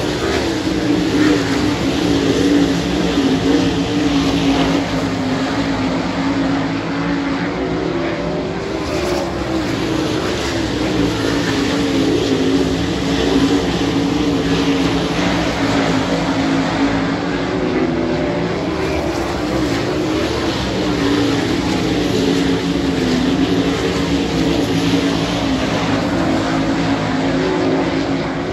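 A field of winged 410 sprint cars racing around a dirt oval, their V8 engines blaring together without a break, pitch wavering up and down as the cars go through the turns and down the straights.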